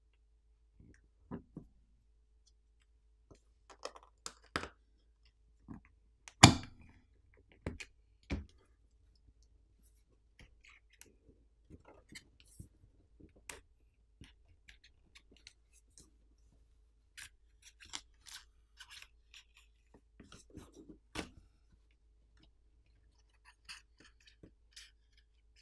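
Sparse small clicks, taps and scrapes of a suction handle and a plastic pry pick working at the glass back plate of a Samsung Galaxy S24 Ultra, prying it loose from its heat-softened adhesive. One sharper click comes about six seconds in.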